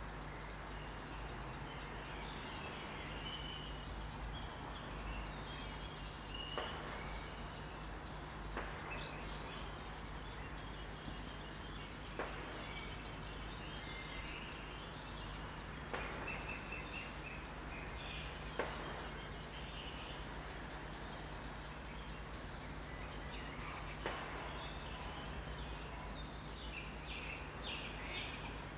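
Faint small-calibre rifle shots from a shooting range: about six single sharp cracks at irregular intervals a few seconds apart. Under them runs a steady, rapid cricket chirping with occasional birdsong.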